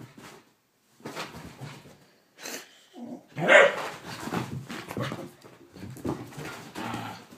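Whippet barking in excited play, a run of irregular barks and noises, the loudest about three and a half seconds in.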